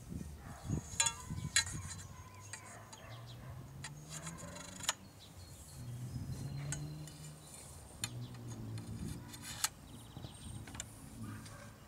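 Aluminum feather-flag pole sections clinking and tapping against each other as they are handled and pushed together. There are a few sharp metallic clinks about a second in, another near the middle and one near the end, over a low hum that rises and falls.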